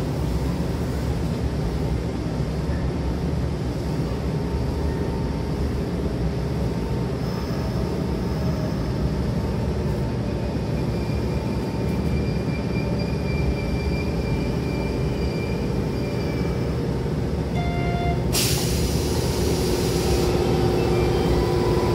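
Commuter electric train heard from inside the passenger car: a steady low running rumble as it runs and comes to a stop at a station. Just past three-quarters of the way through, a sharp hiss of compressed air lasting about two seconds as the pneumatic sliding doors open.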